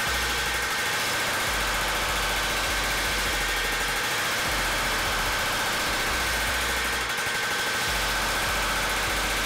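Sosa Metalworks Shape-O-Matic helve-type power hammer running with its shrinking dies, hammering a disc of sheet metal in rapid blows that run together into one steady hammering. This is the shrinking stage, gathering the edge of the disc to raise it into a bowl.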